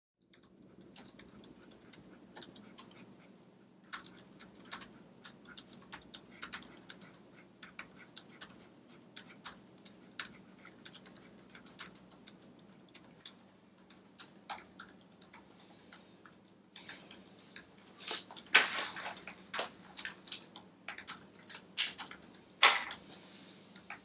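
Laptop keyboard being typed on: irregular light clicking of keys over a low steady hum of room tone, with a few louder knocks and short rustles in the last several seconds.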